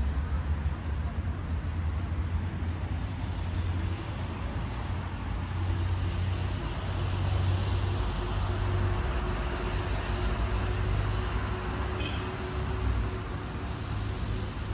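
City street traffic: vehicles running past with a steady low rumble and tyre noise, swelling a little in the middle as a vehicle passes close.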